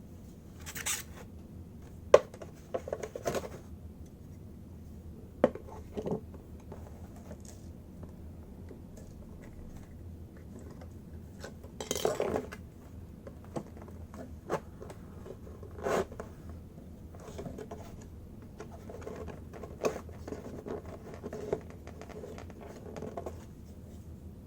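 Handling noises as a heavy model starship is fitted onto its display stand: scattered sharp clicks and knocks, with short bouts of scraping and rustling between them.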